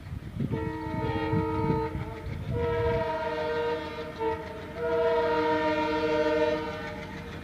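Horn of a WDM3D ALCo diesel locomotive, sounding a chord in three long blasts with a short toot between the second and third. The low chug of the ALCo engine runs under the first couple of seconds.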